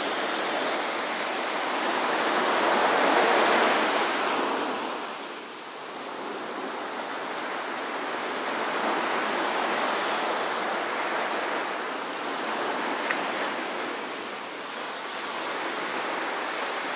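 Small ocean waves breaking and washing up a sandy beach. The surf swells and fades every few seconds and is loudest about three seconds in.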